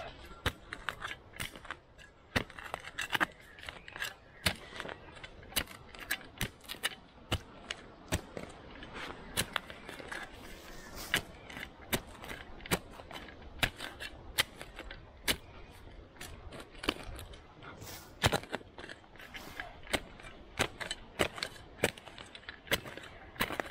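Folding entrenching tool's steel blade chopping down into hard earth to dig a hole: repeated sharp strikes, irregular, roughly one or two a second, with soil scraping between them.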